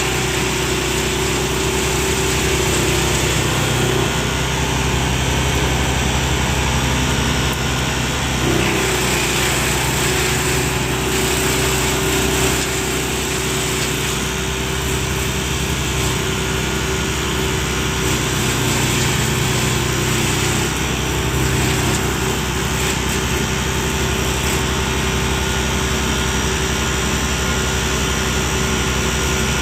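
HUNTER 300 mobile diesel drum wood chipper running steadily, a constant engine drone with a held whine that shifts slightly in pitch about eight seconds in.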